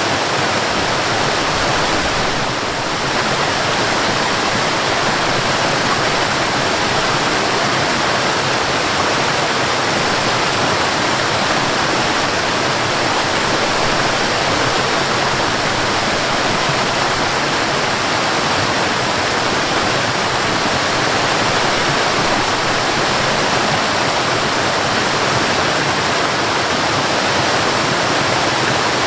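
Waterfall rushing in a steady, even wash of water noise.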